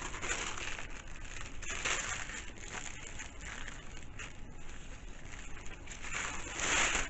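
Paper rustling and crinkling as it is handled and folded, in irregular crackles, with a louder rustle near the end.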